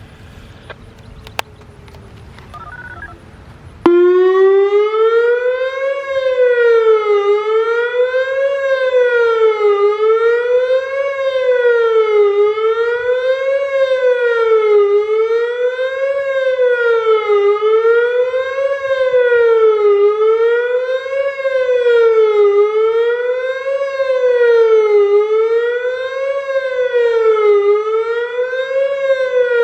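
Federal Signal Modulator 3012 electronic outdoor warning siren sounding its fast wail. It starts abruptly about four seconds in: a loud tone that sweeps up and down every couple of seconds.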